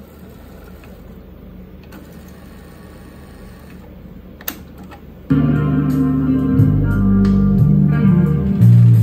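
Luxman K-100 cassette deck: a faint steady hum, then a sharp click about four and a half seconds in as the play button is pressed, and under a second later music starts playing from the tape.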